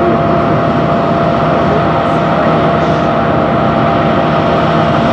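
U-2 reconnaissance jet's engine running on the ground: a loud, constant jet noise with a steady whine over it.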